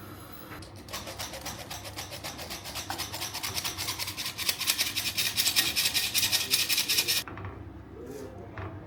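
Quick, even rubbing strokes, several a second, growing louder and then stopping abruptly about seven seconds in, followed by a couple of light knocks.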